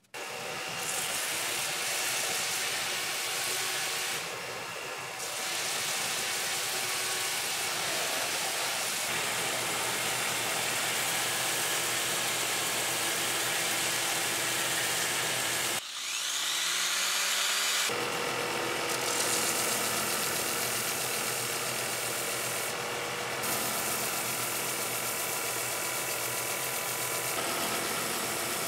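Power tools working a white oak mouthpiece blank: a drill press boring into the wood, then a bench belt sander running while the blank is sanded against the belt, first spun in a hand drill and then held by hand. About sixteen seconds in the noise drops briefly and a motor spins back up to speed.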